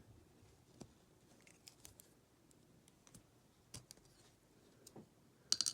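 Faint, scattered small clicks and taps of small lock parts and tools being handled on a work surface, with a quick cluster of louder clicks near the end.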